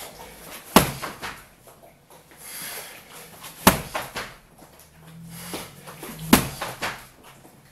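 Kicks landing on a BOB XL freestanding punching dummy: three sharp slapping impacts, about three seconds apart, with fainter knocks between.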